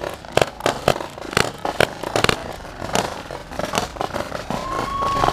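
Paintball markers firing: a string of sharp pops at uneven spacing, several a second. A faint steady whine comes in about four and a half seconds in.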